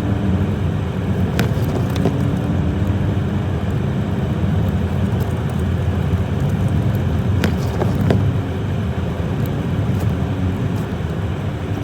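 Toyota Tacoma pickup running and driving through snow: a steady low engine and drivetrain rumble, with a few sharp clicks or knocks.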